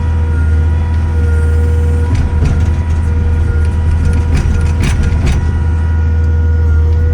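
Takeuchi TL12 compact track loader's Kubota diesel running at a high, steady speed with a strong low drone and a steady whine. A few short clanks and knocks come through around the middle.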